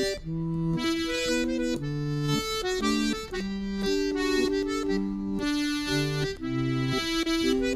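Melodeon (diatonic button accordion) playing a folk dance tune: a melody of held reedy notes over alternating bass and chord notes.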